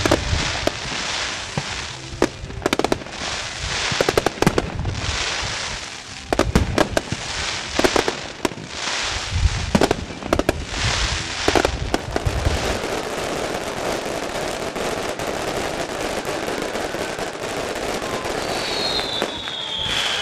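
Fireworks going off: a rapid run of bangs and crackles for the first twelve seconds or so, then a steadier crackling hiss with a falling whistle near the end.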